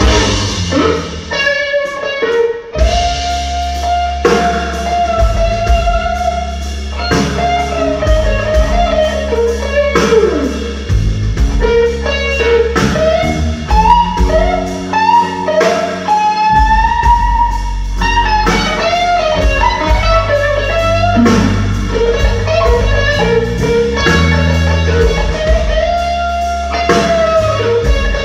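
Live blues trio: an electric guitar plays a lead line of held notes that bend and slide in pitch, over bass guitar and a drum kit keeping a steady beat.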